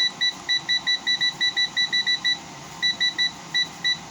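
Control-panel beeper of a 2007 Frigidaire 5200 BTU window air conditioner, giving short identical high beeps as the temperature button is pressed repeatedly to step the setpoint. The beeps come about five a second, break off briefly a little past halfway, then carry on more slowly.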